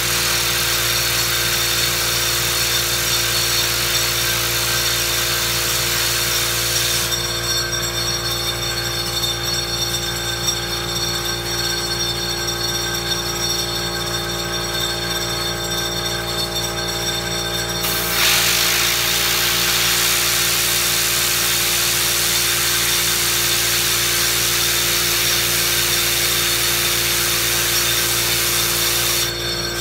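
Compressed air hissing from an air blow gun aimed at a metal fidget spinner to spin it up, with a steady hum underneath. The hiss eases about seven seconds in, comes back strong about eighteen seconds in, and cuts off just before the end.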